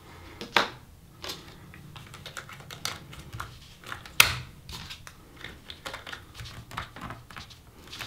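Laptop SO-DIMM memory modules being pushed into their slots and pressed down into the latches: a run of light plastic clicks and taps, with sharper clicks just after half a second and about four seconds in.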